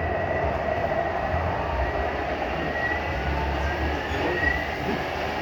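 All-in-one cooking machine's blender motor running at speed, puréeing hot food, with a thin whine that rises slowly in pitch as the speed gradually ramps up.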